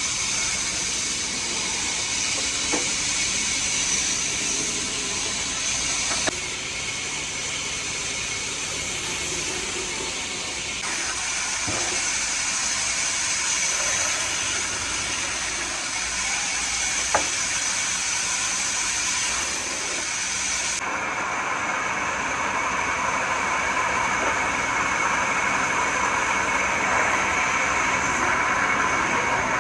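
Steady hissing machine noise from woodworking machinery, with a steady high whine in it. The sound changes abruptly several times, and a few sharp knocks stand out.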